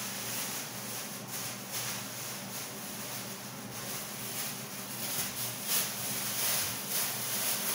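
Gas stove burner hissing steadily under a pan of broth heating up, with faint irregular crackles from the pan.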